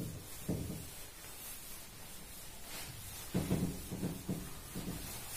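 A whiteboard duster wiping across a whiteboard: one rubbing stroke about half a second in, then a run of four quick strokes in the second half.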